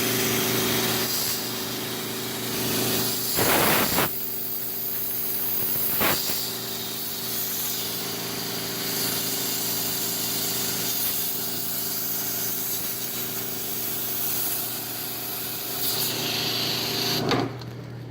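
A powered cleaning sprayer runs with a steady motor hum and a hissing water spray, with louder surges of spray about four and six seconds in. This is typical of a mini-split heat pump being deep-cleaned.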